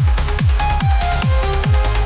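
Electronic trance music: a steady four-on-the-floor kick drum, just over two beats a second, with hi-hats between the kicks and short synth notes above.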